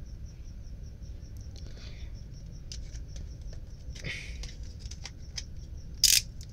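Snap-off utility knife cutting the clear plastic shrink-wrap off a small cardboard box: scattered light clicks and scrapes, short crinkling rustles of the film about two and four seconds in, and a louder sharp scrape near the end.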